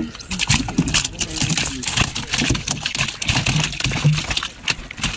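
Large red snapper flapping and thrashing on the wet floor of a boat: rapid, irregular slaps and splashes as its body and tail strike the hull and the shallow water.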